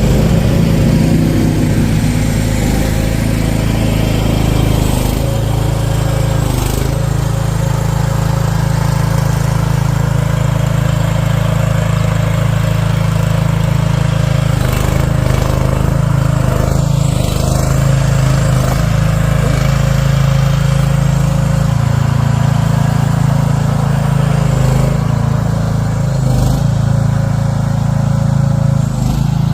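Small mini excavator engine running steadily at working speed, loud and close, with slight dips and swells in pitch now and then as the machine works.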